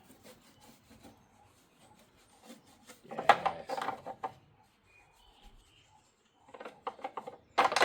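Cloth rubbing quickly over the hard plastic of a freshly painted headlight surround, in two bursts of fast strokes: one about three seconds in and one near the end, which ends in its loudest stroke.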